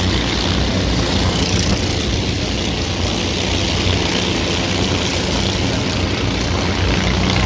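Racing engines running at an oval track, a steady engine drone with no single pass standing out.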